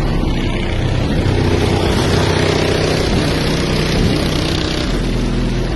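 Very loud bass from two DS18 EXL subwoofers driven by a CT Sounds Team 3000 amplifier, holding deep notes that change pitch now and then, with a dense harsh noise over the top.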